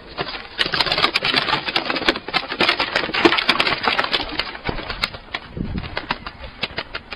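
Bird wings flapping and scuffling in a rapid clatter of many sharp beats, densest for the first few seconds and thinning out near the end.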